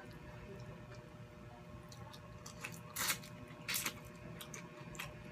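Close-up eating sounds of a person biting into and chewing baked scampi (shrimp): soft wet squishing and mouth smacks, with two louder sharp smacks about three seconds and nearly four seconds in.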